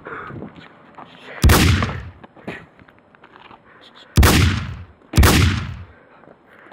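Three gunshot sound effects: one about a second and a half in, then two more about a second apart near four seconds, each a sharp shot that dies away over most of a second.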